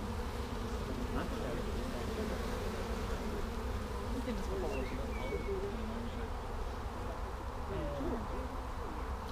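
A swarm of honeybees buzzing in flight, the pitch of individual bees wavering up and down as they fly past.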